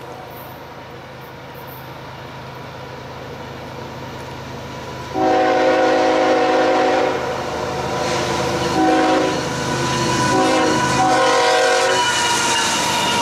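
Multi-tone horn of an approaching CSX freight locomotive sounding several blasts over the train's rumble. The horn comes in about five seconds in with a blast of about two seconds, followed by shorter blasts. Near the end the locomotive passes close by with the clatter of wheels on rail.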